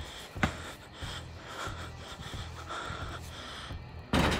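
A person breathing heavily close to the microphone. There is one sharp knock about half a second in, and a loud burst of noise near the end.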